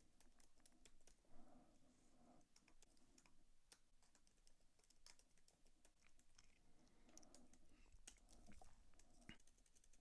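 Faint typing on a computer keyboard, a quick irregular run of key clicks.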